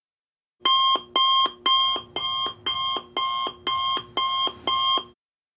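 Alarm clock ringing in nine short, evenly spaced pulses, about two a second, signalling the end of a countdown. It starts about half a second in and stops about five seconds in.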